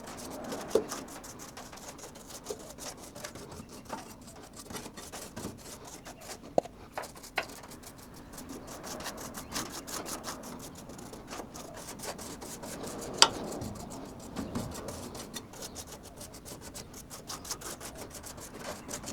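Brush scrubbing rust converter onto rusty sheet steel, a steady rapid rubbing of bristles on metal, with a few sharp knocks, the loudest about 13 seconds in.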